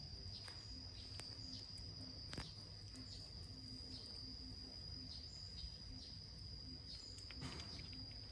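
A cat chewing and licking rice from a plastic plate: faint, irregular small clicks and smacks, the sharpest about two and a half seconds in, over a steady high-pitched insect drone.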